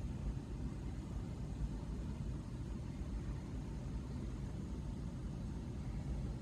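Steady low rumble of background noise with no bird calls or other distinct sounds.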